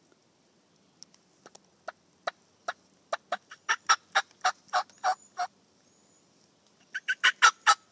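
Wild turkey calling at close range: a run of short, sharp notes that grows louder and quicker over about four seconds, then after a pause a faster, louder burst near the end.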